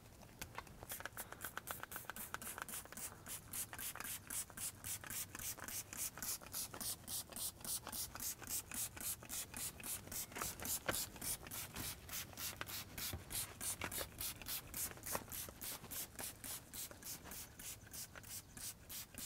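Hand trigger spray bottle pumped in quick succession, about four squirts a second, each a short hiss of mist as hull cleaner goes onto a boat hull.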